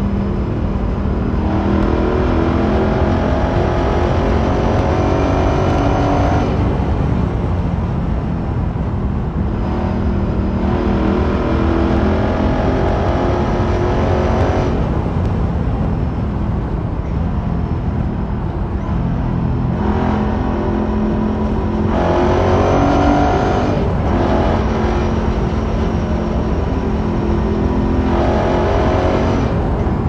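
Ducati Sport Classic's air-cooled 992 cc L-twin engine heard from the rider's seat, pulling hard with its pitch climbing about four times and dropping back between pulls as the throttle is rolled off and on. A steady rush of wind and road noise runs underneath, inside a road tunnel.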